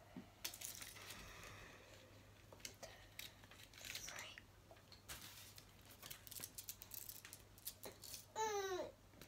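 Small clicks and light plastic crinkling as craft beads and their plastic packet are handled and threaded onto a snowflake ornament. Near the end, a brief voice sound falling in pitch.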